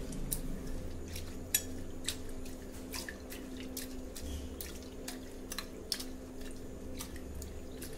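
Lentils and dal being washed by hand in water in a stainless steel bowl: fingers rub and swish the grains, with irregular small splashes and clicks against the steel. A low steady hum runs beneath.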